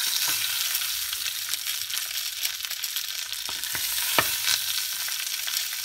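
Steady sizzling and crackling from pork cooking in a baking tin over hot charcoal in a range firebox, as water-soaked hickory chunks are added. A few sharp clicks stand out, the loudest about four seconds in.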